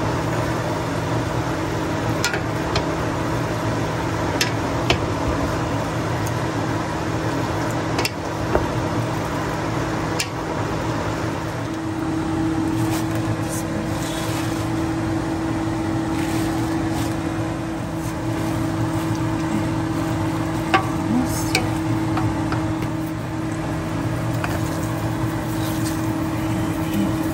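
A steady hum runs throughout, with a few light clicks and scrapes of wooden spoons against a stainless steel pot as glass noodles and vegetables are tossed.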